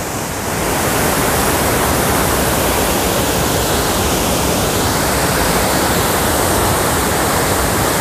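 Waterfall heard at close range: a heavy torrent of white water pouring over rock, a loud steady rush of falling water that swells about half a second in and then holds even.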